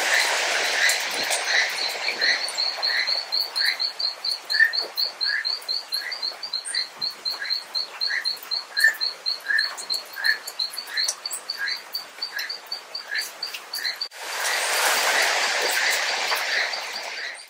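Keel-billed toucan calling: a long run of croaks, a little more than one a second, over a faster, higher series of notes about four a second. About three seconds before the end the sound cuts to a steady hiss.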